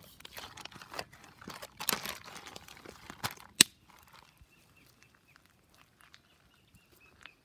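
Plastic zipper bag crinkling as a hand squeezes wet salmon skins inside it, ending in a sharp click about three and a half seconds in. After that, faint short bird chirps repeat in small clusters.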